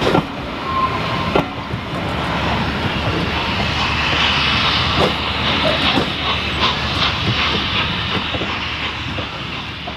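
Steam-hauled train of passenger coaches behind A1 Pacific 60163 Tornado rolling away over pointwork: a steady rumble and hiss with irregular clicks of wheels over rail joints and crossings, fading near the end.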